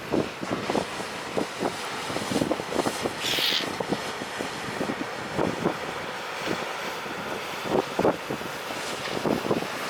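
Gusty wind buffeting the microphone in irregular thumps over a steady rush of surf, with a brief hiss about three seconds in.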